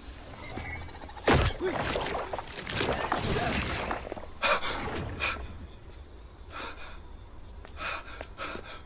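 A sudden loud, deep thud about a second in, followed by a few seconds of rough, rasping noise and a man's startled gasps, then quieter, scattered breaths and sounds.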